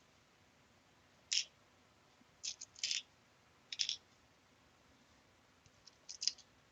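Small metal screws clicking and rattling as they are handled and picked through: about five short, sharp bursts spread through a few seconds, over a quiet room.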